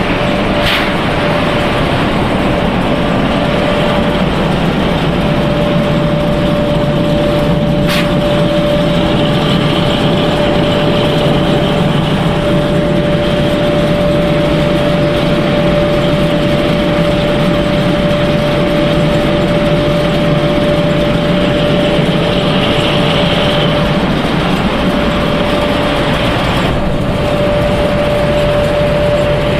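Machinery of a corn-ring snack pellet production line running: a loud, steady drone with a constant hum tone, broken by a few brief clicks.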